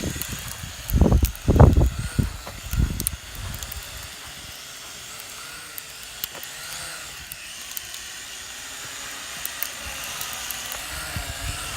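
Vivitar Aeroview DRC446 quadcopter's motors and propellers whining in flight, the pitch wavering as it works against the wind. Wind gusts buffet the microphone with loud rumbles in the first few seconds.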